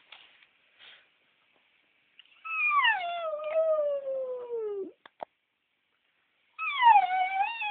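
West Highland White Terrier howling: a long, high howl about two and a half seconds in that slides steadily down in pitch, then a second, shorter howl near the end that dips and levels off.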